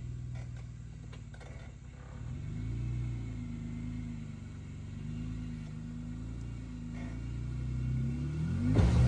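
Jeep Wrangler Rubicon's 3.6-litre V6 engine at low revs as it crawls over rocks, the revs rising and falling with throttle. It gets louder toward the end, with a sudden surge in revs just before it ends.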